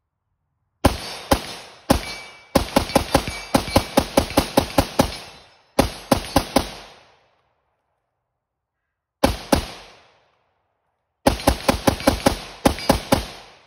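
Palmetto State Armory AK-103 rifle firing 7.62x39 in rapid strings: two single shots, then a quick run of about five shots a second. After gaps come a couple more shots and another fast string near the end, each report trailing off in an echo.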